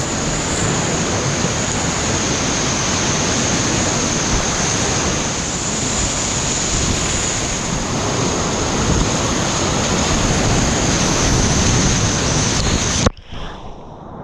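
Whitewater rapids rushing loud and steady around a kayak as it is paddled downstream, with a thin steady high tone over the rush. About 13 seconds in, the rush drops suddenly to a much quieter hush.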